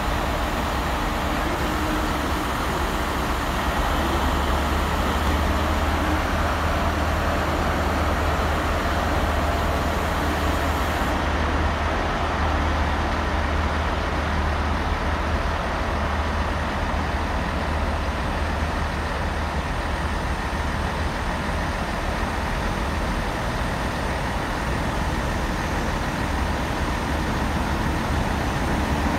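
Steady low diesel rumble of a West Coast Railways Class 33 and Class 47 locomotive pair approaching a station.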